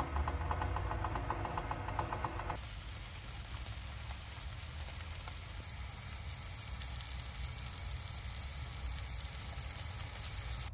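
Sliced mushrooms sizzling in a frying pan: a steady frying hiss. For the first couple of seconds, while a kettle heats on the hob, a different steady sound with a hum and a faint pitch is heard, cutting suddenly to the sizzling.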